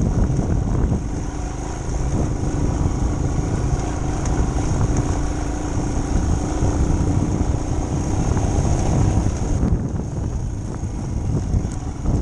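Royal Enfield Himalayan motorcycle's single-cylinder engine running steadily while the bike jolts over a rocky dirt track, heard through a camera mounted on the bike.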